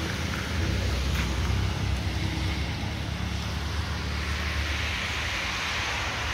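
Tata truck's diesel engine idling steadily, with an even hiss over it.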